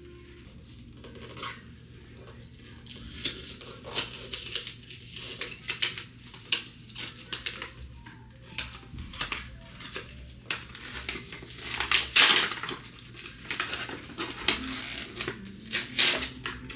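Clinks, taps and rustles of hard items and packaging being handled and set down while unboxing. There are many short knocks, and a longer rustling scrape about twelve seconds in is the loudest.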